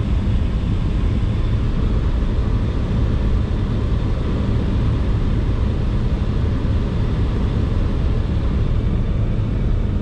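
Steady road and engine noise inside a moving truck's cabin: a constant low drone of tyres and engine with no change in level.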